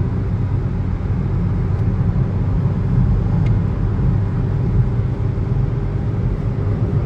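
Steady road noise inside a moving car's cabin: a low, even rumble of engine and tyres on the road while driving.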